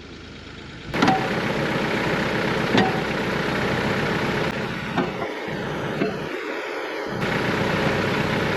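Bobcat E42 mini excavator's diesel engine running steadily under work, starting abruptly about a second in, with a few sharp knocks along the way.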